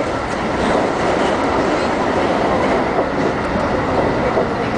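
JR local electric train running at speed across a steel truss bridge, heard from behind the driver's cab: a steady loud rumble of wheels on rails with a few faint clicks.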